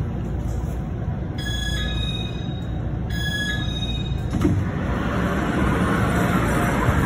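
Taiwan Railways local train's door chime sounds twice, a short run of clear notes each time. About four seconds in comes a click, and the sliding passenger door opens with a growing hiss. A steady low rumble from the stopped train runs underneath.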